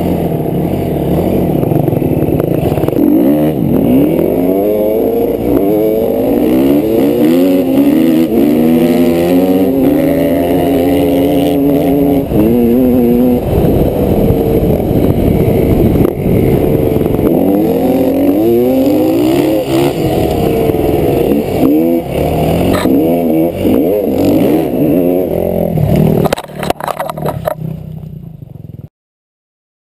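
Enduro dirt bike engine revving hard, its pitch climbing and dropping again and again through the gears, heard through a helmet-mounted camera with wind noise. Near the end the engine note falls away among a few knocks, and the sound cuts off suddenly.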